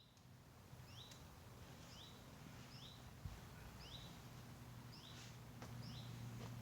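Faint songbird calling a two-note phrase, a short high note then a lower one, about once a second, over a low steady hum.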